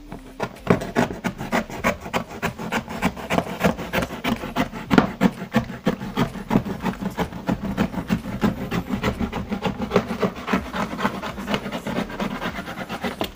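A marker pen scratching across cardboard in quick, even strokes, several a second, as it traces a circle around the rim of an upturned plastic basin.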